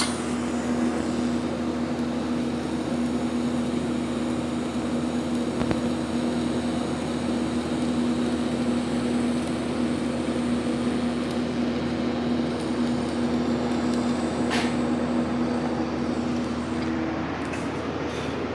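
Electric welding running steadily: a welder's hum over a constant hiss, with the hum stopping near the end.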